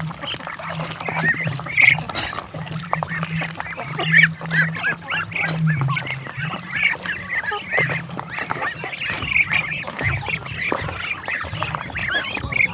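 A flock of Muscovy ducks calling with many short, high, repeated calls, several a second, as they crowd and feed at a basin of wet mash. Scattered clicks and knocks come from bills pecking in the basin.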